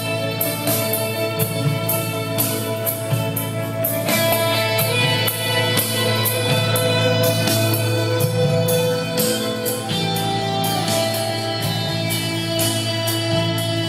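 Guitar-led rock music with a steady beat, played back from a TEAC reel-to-reel tape deck.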